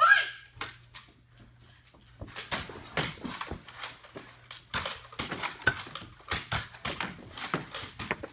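Nerf blasters firing and foam darts striking, a rapid, irregular series of sharp clicks and knocks starting about two seconds in.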